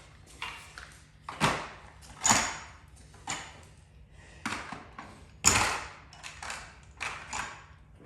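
Irregular clicks, clacks and knocks of hand tools and small parts being picked up and set down, with three louder clacks that ring briefly.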